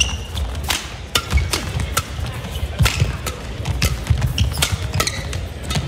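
Badminton court sounds: a string of sharp, irregular knocks from rackets, shuttle and feet on the court mat, with short shoe squeaks near the start and around five seconds in.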